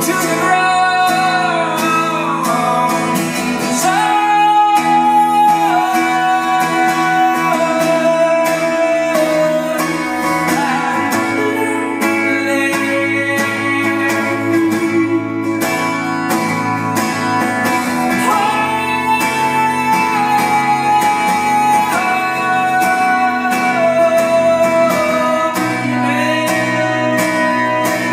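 Acoustic guitar strummed steadily under a man's voice singing long, held notes that step down in pitch, in two drawn-out phrases; a live solo song.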